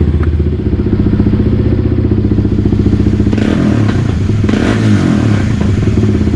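Kawasaki KLX300R's single-cylinder four-stroke engine running at idle through a newly fitted Pro Circuit T6 full exhaust, steady and loud. Its engine speed wavers briefly about halfway through.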